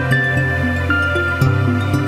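Background music: a calm instrumental tune, with a bass line changing notes every half second or so under held higher notes.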